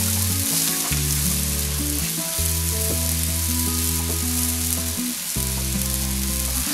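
Stock with scallion, ginger and garlic bubbling and sizzling in a wok, with cooking wine poured in at the start.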